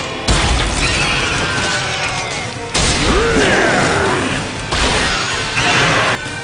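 Anime battle soundtrack: dense crashing and impact sound effects mixed with music. The mix changes abruptly several times, about every two seconds.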